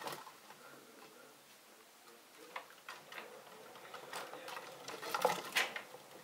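Irregular light clicks and taps from pet degus moving about their wire cage, louder and closer together about four to five and a half seconds in.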